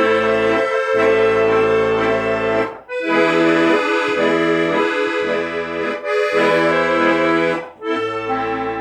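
Instrumental music: sustained melody notes over a rhythmic, pulsing bass-and-chord accompaniment, with two brief pauses between phrases.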